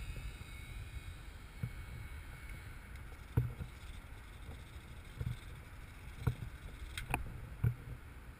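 Wind buffeting the microphone as a steady low rumble, with about seven short knocks and clicks, two sharp clicks close together about seven seconds in.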